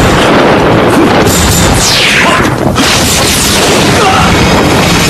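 Martial-arts fight sound effects: a loud, dense rushing noise with a falling whoosh about two seconds in, over dramatic background music.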